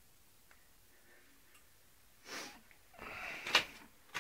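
Mostly quiet, with a short, sharp breath heard close to the microphone about halfway through. Near the end there is faint rustling that ends in a click.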